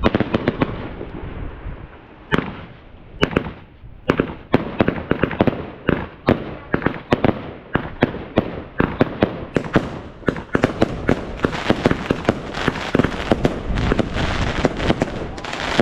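Consumer firework battery going off: a rapid series of sharp bangs and pops, irregular at first and coming several a second from about four seconds in, with crackling filling in between them from about ten seconds in.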